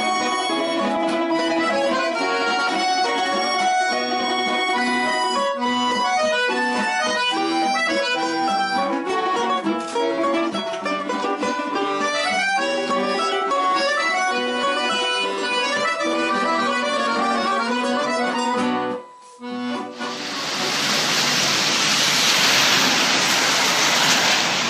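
Accordion music that cuts off about nineteen seconds in. After a brief gap comes a steady, loud hiss of rain and car tyres on a wet street.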